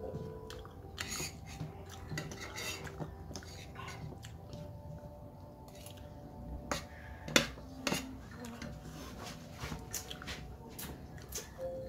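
Eating utensils clinking and scraping against a plate in scattered light clicks, the loudest clink a little past halfway.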